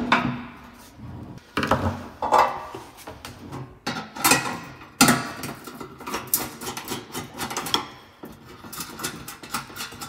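Irregular clicks, knocks and scrapes of metal as a sheet-metal two-burner gas cooktop is turned over and handled, and a screwdriver works at its burner jets, with a few louder knocks in the first half.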